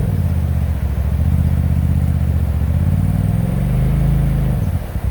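Off-road vehicle's engine running under throttle at crawling speed, its pitch rising a little over three seconds in and then dropping back just before the end.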